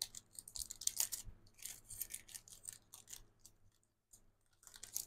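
Thin plastic wrapper crinkling and crackling as it is handled and pulled off a pack of scrapbook papers: a run of short, sharp crackles, a pause of about a second, then more crackling near the end.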